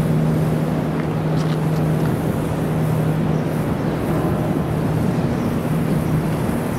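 Steady city street traffic noise: a constant rumble of passing vehicles with a low, even hum running under it.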